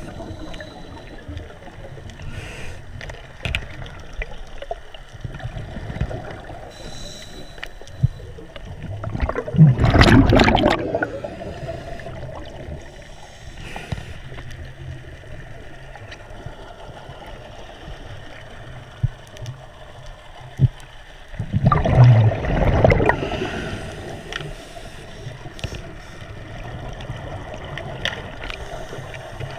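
Underwater ambience picked up by a diver's camera: a steady low water hiss with small clicks. About ten seconds in and again about twelve seconds later, there is a loud gurgling rush of bubbles, the diver's exhaled breath streaming past the camera.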